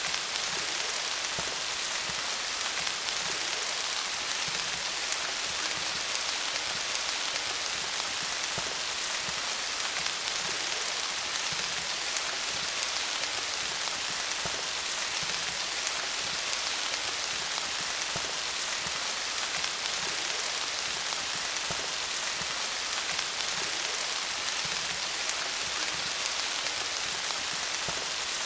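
Steady rain falling on leaves, a dense even patter of drops.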